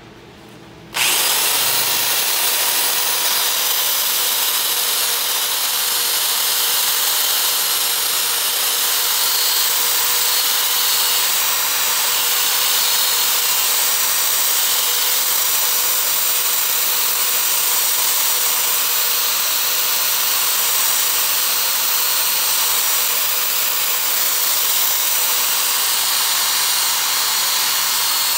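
Handheld power tool spinning a small sanding disc against the steel of a double-bit axe head, sanding off rust and the top layer of metal. It starts suddenly about a second in and then runs as a steady whine with grinding, without letting up.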